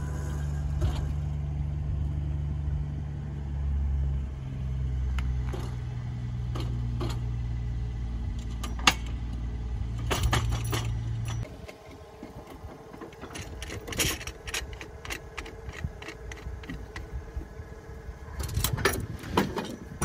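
A steady low hum that shifts in pitch twice and cuts off suddenly about eleven and a half seconds in. After it comes a run of light metallic clicks and jangles.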